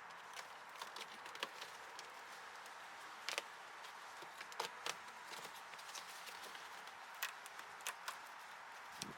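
Faint, irregular clicks and taps of a cover being worked off the inside of a car door to reach the door lock actuator, over a low steady hiss.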